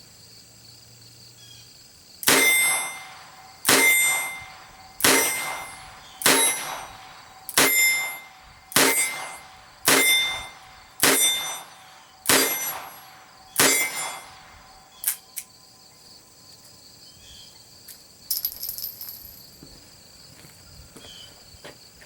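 Ruger GP100 .22 LR revolver fired ten times in steady double action, about one shot every second and a quarter, emptying the ten-shot cylinder with no duds. Each shot is a sharp crack with a brief ring. A couple of small clicks and a light metallic clatter follow the string, with crickets chirping throughout.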